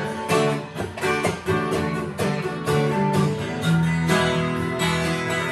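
Acoustic guitar strummed in a steady rhythm, its chords ringing on between the strokes.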